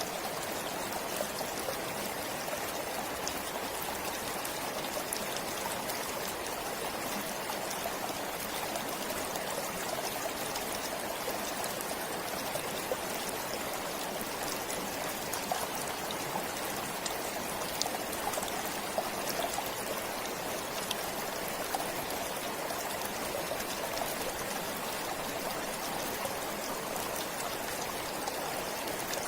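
A forest stream flowing steadily, a constant rush of water with small splashes and trickles.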